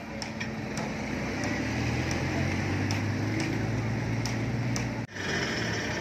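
Sumitomo asphalt paver's diesel engine running steadily, with scattered light clicks over it. The sound breaks off abruptly about five seconds in, and similar engine noise carries on after the break.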